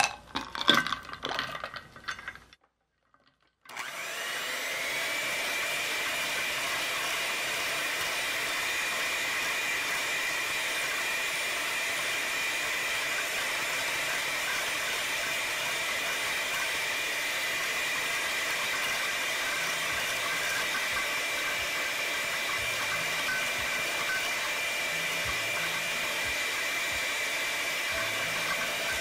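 A glass bowl clinks and knocks against ice for about two seconds. After a short gap, an electric hand mixer spins up and runs steadily at high speed with a level whine, its beaters whipping soft praline buttercream over ice water to work air into it.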